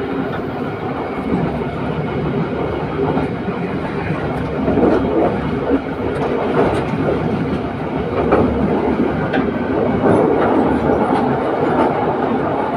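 Train running along the track: a steady rumble of wheels on the rails, with a few faint clicks over rail joints.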